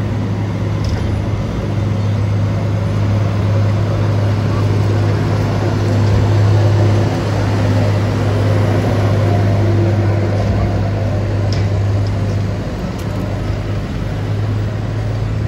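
Road traffic noise from slow, jammed traffic of buses, trucks, cars and motorcycles, with a steady low hum throughout.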